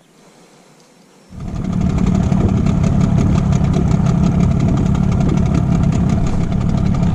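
Boat's outboard motor running steadily, with an even pulsing beat. It cuts in abruptly about a second in.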